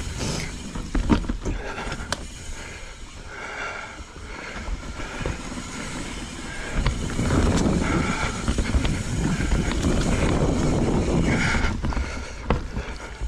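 Knolly mountain bike rolling down dirt singletrack: tyres rumbling over the dirt, with rattles and sharp knocks from the bike over bumps and wind on the mic. The rumble grows louder about seven seconds in.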